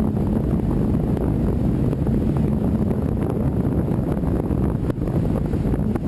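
Wind blowing through a tunnel and buffeting the microphone: a loud, steady low rumble.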